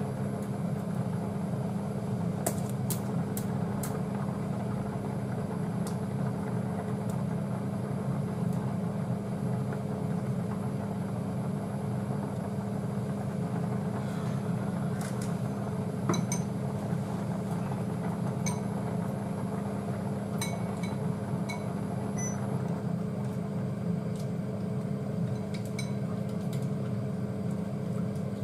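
Steady low hum of a kitchen appliance running, with scattered light clinks of cooking utensils against a pot and a ceramic bowl.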